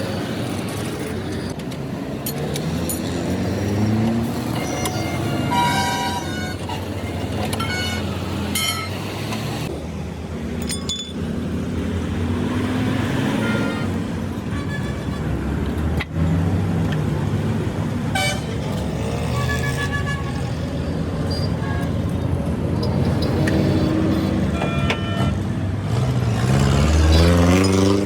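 Road traffic: vehicle engines rising and falling in pitch as they pass or rev, with several short horn toots scattered through.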